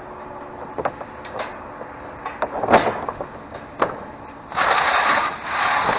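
Scattered knocks and clatter of items being handled, then a loud rustling noise starting about four and a half seconds in.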